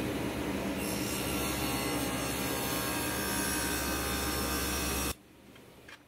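Table saw cutting a sheet of aluminium: the saw's steady running noise takes on a high metallic ringing squeal about a second in as the blade bites the metal, then cuts off suddenly about five seconds in.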